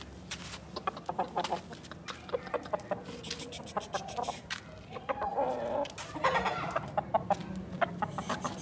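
Aseel game rooster clucking in many short, sharp notes, busiest in the second half.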